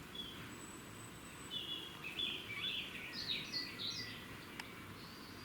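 Grey squirrels calling: a quick run of high chirps and squeaks starting about a second and a half in and lasting a little over two seconds, which the uploader guesses is mating behaviour. A single sharp click follows near the end, over a steady low hum.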